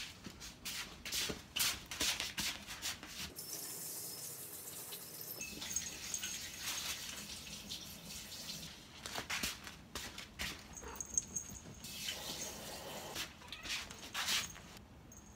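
Work at a kitchen counter: light clatter and knocks of utensils or dishes, with running water for a few seconds at a time.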